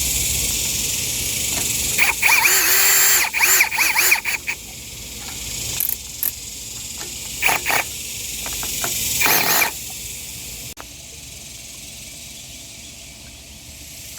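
Cordless drill-driver whirring in several short bursts, its pitch rising and falling as it drives in screws, the longest run of bursts early and shorter ones after.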